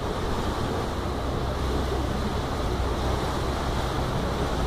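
Steady low rumble of a passenger boat's engine under way, mixed with wind and water noise.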